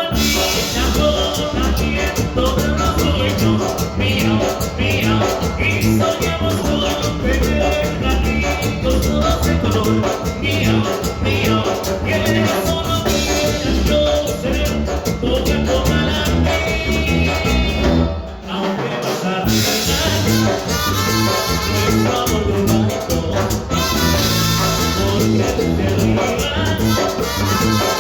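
A Latin tropical band playing live, with a steady dance beat and brass and percussion over it. The bass drops out for about a second some eighteen seconds in, then the full band comes back.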